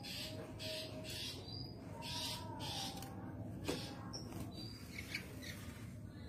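Brown-chested jungle flycatcher (SRDC) calling: short high whistled notes and chirps with slower, lower drawn-out whistles. The title takes it for a female in breeding condition calling for a male.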